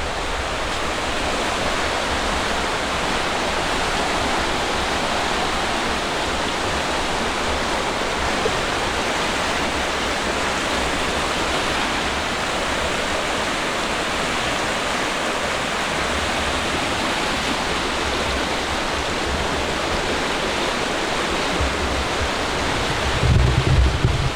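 Steady rushing of the River Twiss in spate, swollen by heavy rain, pouring over rocks and falls.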